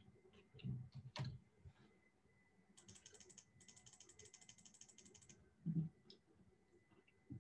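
Faint computer keyboard typing: a quick run of keystrokes starting about three seconds in and lasting about two and a half seconds. A few low soft thumps, the loudest near the end.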